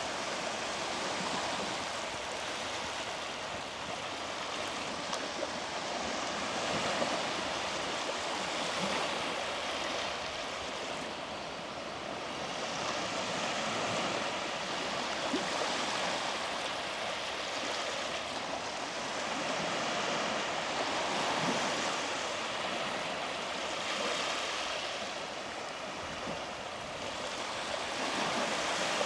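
Small sea waves breaking and washing onto the beach, a steady surf noise that swells and eases every several seconds.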